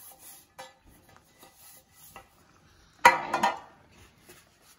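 Faint handling sounds, then about three seconds in a metal loaf pan clatters against the countertop in a short burst of a few quick knocks.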